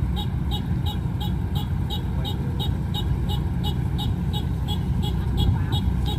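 Rice combine harvester's engine running steadily with a low rumble, with a regular high chirp repeating about three times a second.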